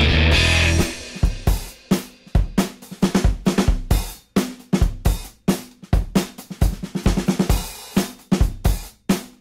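Background music: a sustained rock band chord breaks off about a second in, then a drum kit plays alone in a steady beat of bass drum, snare and hi-hat.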